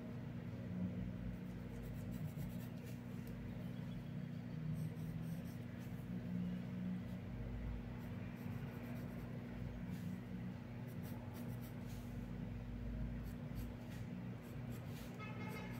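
Colored pencil sketching on paper: a run of light scratching strokes, over a steady low hum.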